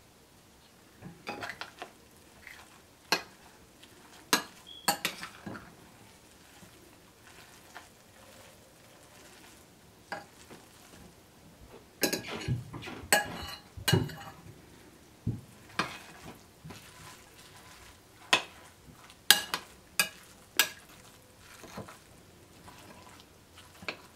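Metal spoon clinking and scraping against a ceramic casserole dish while stirring moist torn injera. The strokes are irregular sharp clinks, with denser runs of clinking and scraping about one second in and again around twelve to fourteen seconds in.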